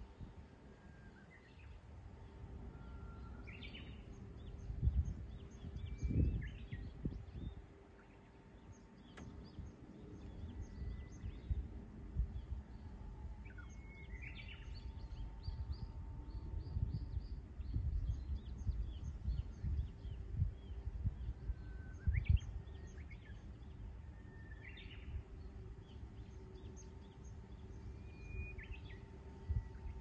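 Songbirds singing and calling around a pond, with short whistled phrases and chirps every few seconds. Low rumbling gusts of wind on the microphone come and go and are the loudest part, over a faint steady hum.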